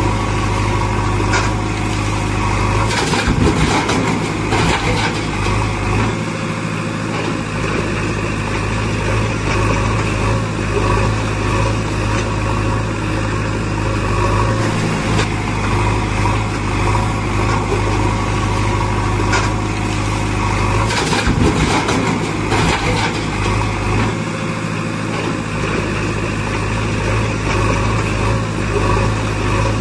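Heavy-machine engine running steadily, with brief clattering knocks about three to five seconds in and again around twenty seconds in.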